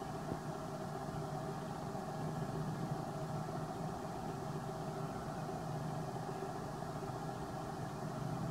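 Steady hum of a running engine, with several fixed tones that hold the same pitch and no change in speed.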